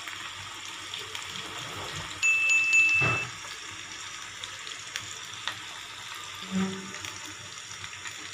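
Anchovies deep-frying in hot oil: a steady bubbling sizzle. A little over two seconds in, a loud high chime tone sounds for about a second over it.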